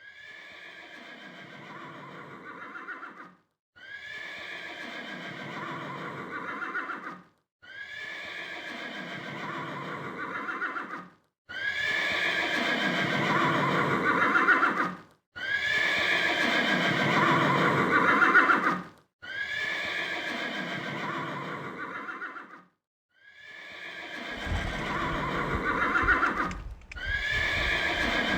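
Horse whinnying: a whinny repeated about eight times, each a few seconds long with a brief silence between. Each one opens with a high call that falls in pitch, and they grow louder partway through.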